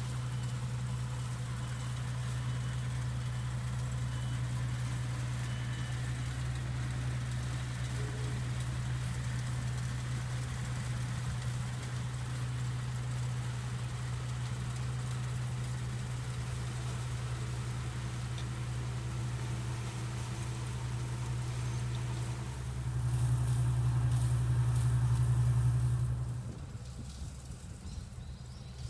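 Engine of a small rice harvester that bags its grain in sacks, running steadily. It grows louder for a few seconds near the end, then falls away quickly.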